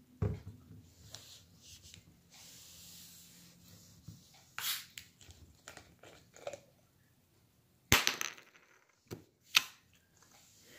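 A plastic screw cap being twisted off a 20-ounce bottle of Fanta grape soda. There are clicks and crackles from the cap and the plastic bottle in the hands, a faint hiss of escaping carbonation, and sharp bursts, the loudest about eight seconds in.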